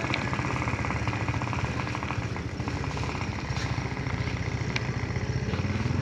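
A small engine running steadily, with a fast, even pulse over a low hum.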